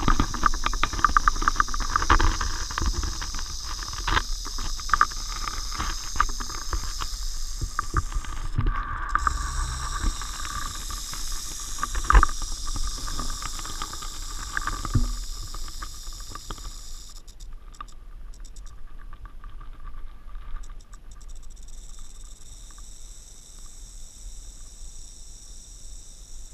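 Timber rattlesnake rattling its tail: a steady high buzz that breaks off briefly about nine seconds in and drops away sharply around seventeen seconds in, then comes back faintly. Over the first half come repeated knocks and clicks from the camera's waterproof housing on its pole mount, the loudest about twelve seconds in.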